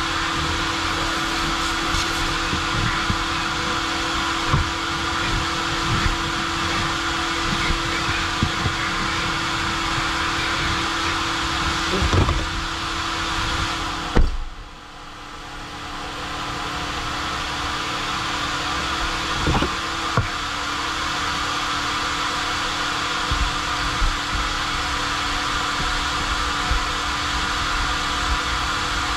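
Coin-operated car wash vacuum running with a steady rush of air and a steady hum, broken by occasional knocks. About fourteen seconds in, a sharp knock is followed by a sudden drop in the sound, which then builds back over a few seconds.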